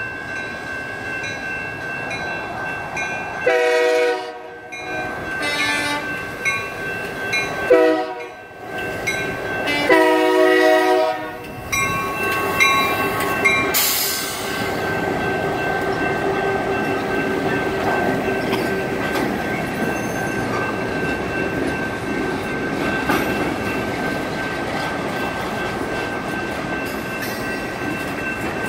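Crossing signal's electronic bell ringing steadily while several long horn blasts sound, the freight locomotive's horn with a truck's horn blowing as well. About fourteen seconds in, the GP15-1 and GP38-2 diesel locomotives pass, and then freight cars roll through the crossing with steady wheel noise.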